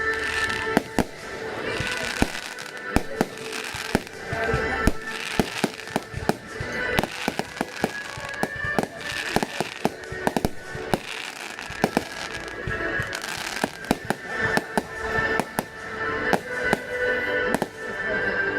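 Fireworks going off: a rapid, irregular string of sharp bangs and crackles, with music playing underneath.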